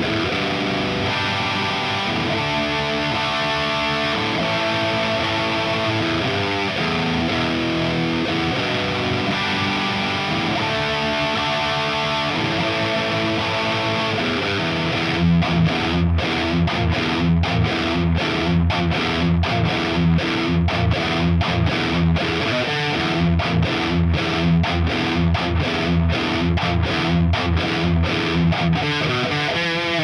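Distorted electric guitar, a 1987 Charvel Model 6 played through a modded 1978 Marshall Super Bass head and a Marshall Mode Four cabinet with four Celestion G12K-100 speakers. It plays ringing chords and held notes, then about halfway through switches to a fast riff of short, choppy low notes.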